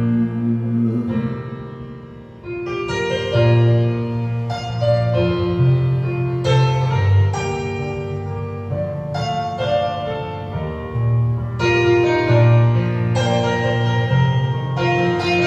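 Instrumental backing-track music with no singing: keyboard chords held over a bass line, changing every second or so, with a brief drop in loudness about two seconds in before the next chord comes in.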